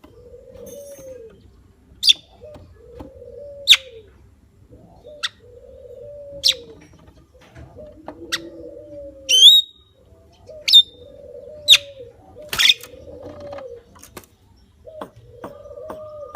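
Javan myna giving sharp, high calls every second or two, over a low cooing note repeated about every second and a half.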